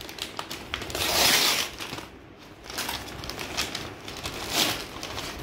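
Brown kraft-paper courier mailer being torn open and crinkled by hand. There is a louder stretch of ripping paper about a second in and another sharp rustle near the end.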